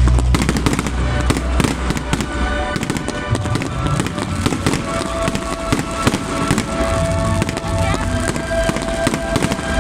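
Fireworks going off in dense, rapid crackling pops, with music playing along. A deep rumble dies away in the first few seconds.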